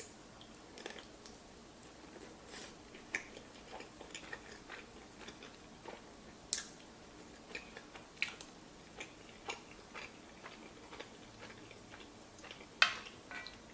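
A person eating close to the microphone: quiet chewing with scattered wet mouth clicks and smacks at an uneven pace, and a few louder sharp clicks, the loudest near the end.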